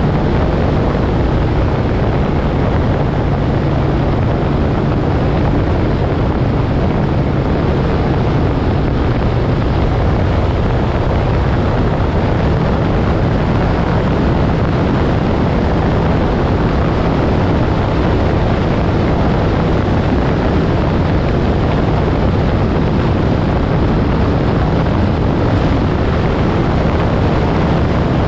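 Moto Guzzi Griso's V-twin engine running at a steady cruise, with wind rushing over the microphone.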